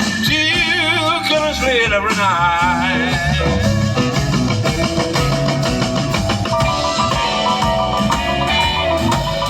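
Band playing rock music at a sound check. Singing with long, wavering notes comes in the first couple of seconds, then steadier notes, over drums, bass and guitar.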